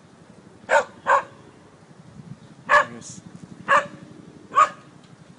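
A dog barking five times: two quick barks near the start, then three single barks about a second apart.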